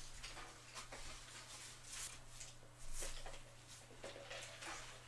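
Close-up eating and drinking noises: a string of short, soft mouth and handling sounds, with sips drawn through a drinking straw from a fast-food cup.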